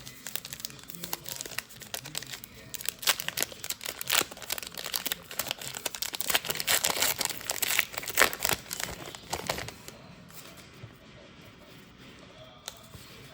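Crinkling and tearing of a trading-card pack's wrapper as it is handled and ripped open, a dense irregular crackle that dies down to light handling noise after about ten seconds.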